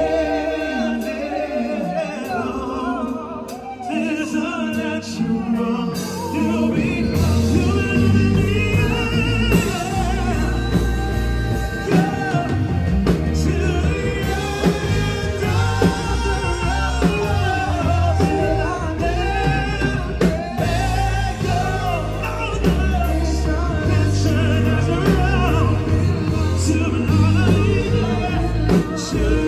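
Male singers performing live into handheld microphones over a PA, backed by a live band on keyboard and drums. The sound gets fuller, with a heavy low beat coming in, about six or seven seconds in.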